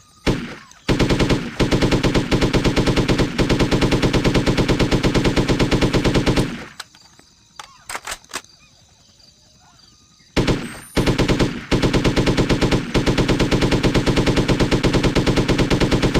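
M60 machine gun firing long fully automatic bursts of rapid shots: a short burst about a second in, a long burst of several seconds, a pause with a few single sharp cracks, then another long burst that runs through the end.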